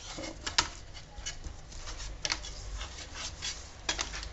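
Hands rubbing seasoning into raw chicken pieces and moving them about in a roasting tray: a run of soft rubbing and short, irregular clicks, the sharpest about half a second in.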